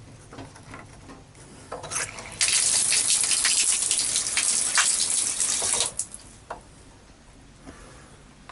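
A stream of water gushing out of the solar water heater's pipework, starting about two seconds in and cutting off suddenly about four seconds later.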